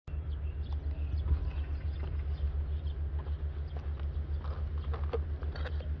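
Footsteps on a wooden boardwalk over a steady low rumble of wind on the microphone, with a few faint bird chirps.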